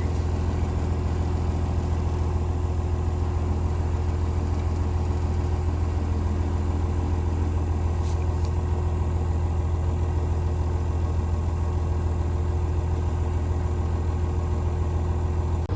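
Engine running steadily at a constant speed, a low, even drone.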